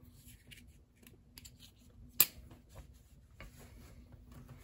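Small clicks and rustles of folding pocket knives being handled and moved about on a fabric mat, with one sharp click about two seconds in.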